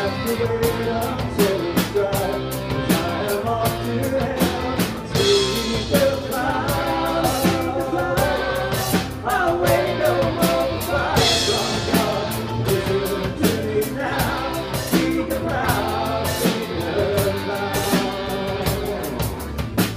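Live Celtic rock band playing: drum kit keeping a steady beat under electric and bass guitars, acoustic guitar and electric mandolin, with sung vocals.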